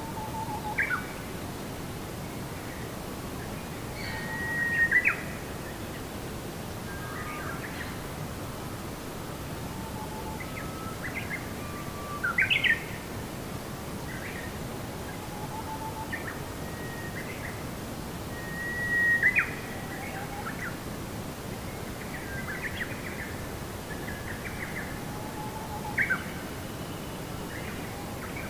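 Wild birds chirping and calling: short whistled notes and quick up-and-down sweeps every second or two, a few louder calls standing out, over a steady low background rush of outdoor ambience.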